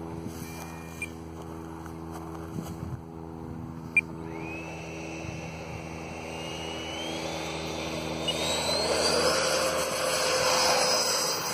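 Radio-controlled model jet's engine spooling up for the takeoff roll, its whine climbing steadily in pitch and growing louder over the last few seconds. A sharp click about four seconds in.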